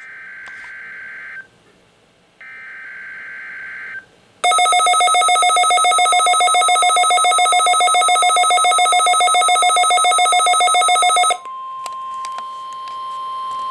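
NOAA Weather Radio SAME digital header: two bursts of screechy data tone, each about a second and a half, a second apart, marking the start of a Required Weekly Test. About four and a half seconds in, a loud, rapidly pulsing electronic alert tone sounds for about seven seconds, with a faint steady tone under it.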